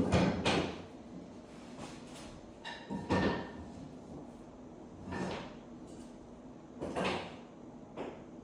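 Short wooden knocks and scrapes at irregular intervals, the loudest at the very start, typical of hardwood floor boards and tools being handled and fitted during a floor repair.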